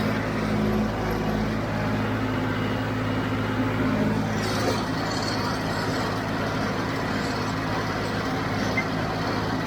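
John Deere 5055D tractor's diesel engine running steadily under load while it pulls and drives a John Deere 348 square baler through the hay.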